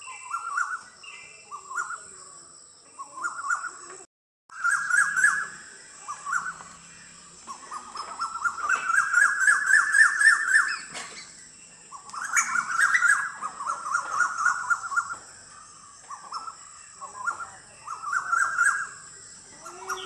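Asian koels calling: a string of short rising calls, then a long run of rapid notes that climbs steadily in pitch, followed by more calls. A steady high whine runs underneath, and the sound drops out briefly about four seconds in.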